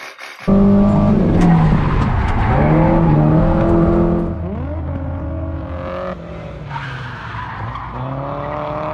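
Drift car's engine held high in the revs while its tyres screech in a slide, the engine pitch falling and rising with the throttle. It cuts in suddenly about half a second in and is loudest over the first four seconds.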